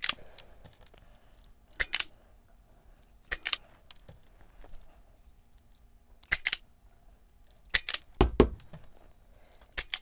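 Self-adjusting wire stripper clamping and stripping thin hookup wire, squeezed and released several times, each stroke a sharp double click every second or two. Near the end comes a heavier, duller knock.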